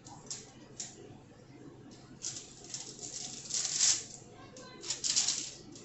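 A handful of short rustling, scraping handling noises from kitchen prep work, the loudest about four seconds in and another just after five seconds.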